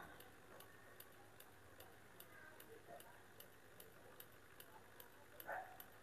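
Toshiba inverter washing-machine drain actuator (HM-15N-4 drain motor) running on mains power, its geared motor turning the cam with faint, even ticking about two to three times a second. The repaired unit is working properly.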